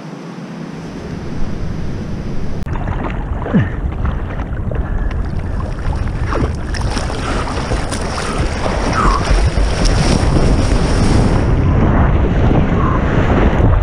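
Sea water sloshing and splashing around a camera riding at the water's surface, with wind rumbling on the microphone. The noise builds over the first two seconds and then stays loud.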